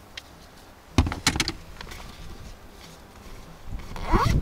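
Handling clatter of a metal detector being put together: several sharp clicks and knocks about a second in, then a louder thump near the end.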